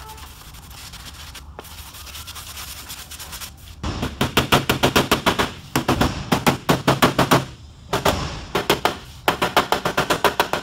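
Steel body hammer tapping rapidly on a Kia Soul's sheet-steel door skin, knocking down the raised spots to bring the body line back into place. It starts about four seconds in and comes in four quick runs of about eight taps a second, with short pauses between them, after a few seconds of quieter rubbing on the panel.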